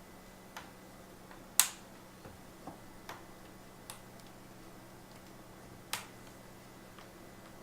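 Sharp plastic clicks of a laptop screen bezel's clips snapping into place around the lid, about seven scattered clicks with the loudest about a second and a half in.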